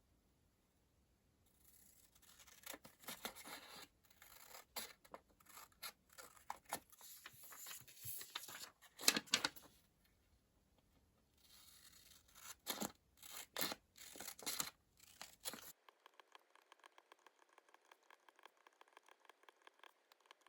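Close-up paper handling while decorating a planner: paper or sticker sheets tearing and crinkling, with scratches and small taps, in uneven bursts. A bit over fifteen seconds in, it changes abruptly to a faint, fast, even patter of ticks.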